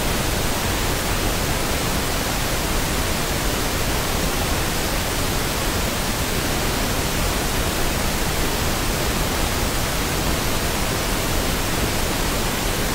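iOS 15 Background Sounds white-noise track playing back: a steady, even hiss with no change in level.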